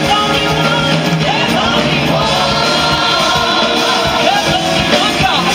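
Live gospel worship song: a worship team and choir singing over a band, loud and steady.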